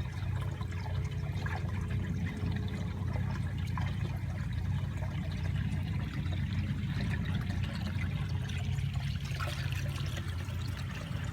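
Water steadily pouring and trickling, over a low steady rumble.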